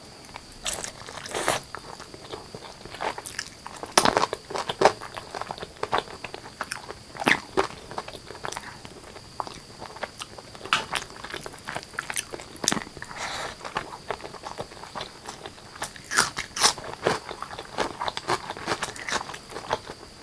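A person biting and chewing spicy chicken curry and rice close to the microphone, in irregular sharp clicks and crunches, loudest about four seconds in and again near the end.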